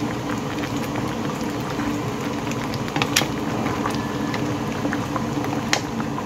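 Spicy red seafood stew of crabs, clams and pork belly bubbling steadily in a pan, with many small crackling pops. Two sharper clicks come about three seconds in and near the end.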